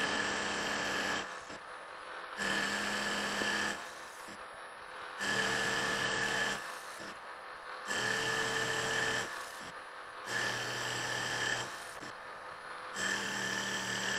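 Precision Matthews PM-1127 metal lathe turning down the oversized, not-yet-round outer edge of a large pallet mounted on its faceplate. A pitched cutting whine swells loud for about a second roughly every two and a half seconds, six times, over the steady running of the lathe.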